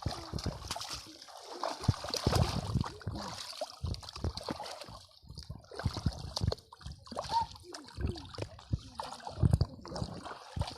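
Shallow water splashing and sloshing unevenly as hands work through it in search of fish. The heaviest splashes come about two seconds in and again near the end.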